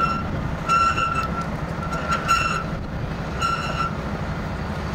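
Tow truck winch cable being pulled out by hand, squealing briefly on each pull, four times at roughly one-second intervals. A truck engine runs steadily underneath.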